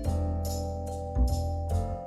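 Background music with a steady beat and low bass notes.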